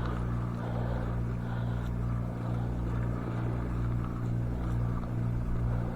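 An engine running steadily at a constant speed, a low even hum with no change in pitch.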